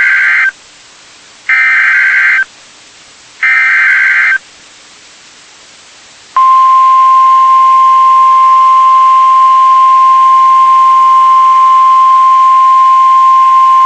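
NOAA Weather Radio emergency alert: three short bursts of the SAME digital header, about two seconds apart, then about six seconds in the steady 1050 Hz warning alarm tone begins and holds. Together they signal that a weather warning is about to be broadcast.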